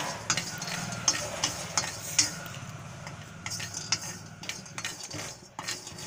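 Metal spatula scraping and stirring whole almonds in a dry kadai as they roast, the nuts rattling against the pan in irregular scrapes and clicks about twice a second. A low steady hum runs underneath.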